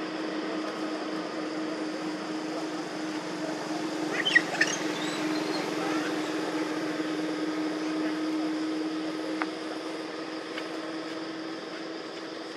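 Steady background hum with a constant low drone. About four seconds in, a few short high squeaks.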